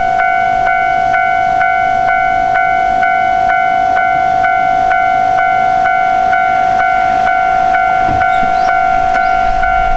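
Railway level-crossing warning bell ringing loud and steady, struck about twice a second: the crossing signal for an approaching train.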